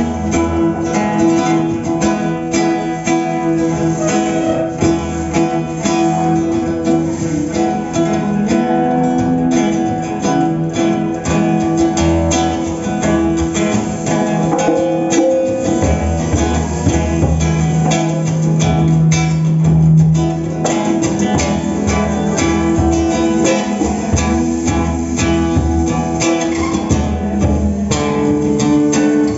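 Plucked string ensemble, rondalla-style, playing a tune: many quick picked notes over steady bass notes.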